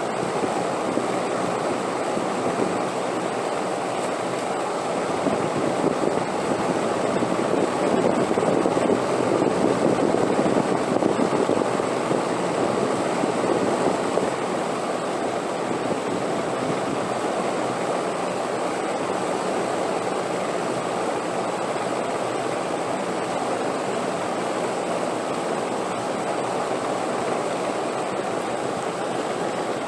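Wind blowing in a steady rush, swelling into a stronger gust a few seconds in that eases off about halfway through.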